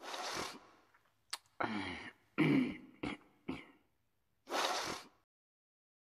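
A person's breath and throat noises: a breathy rush, a click, two short throaty voiced sounds and two brief puffs, then another breathy rush about four and a half seconds in.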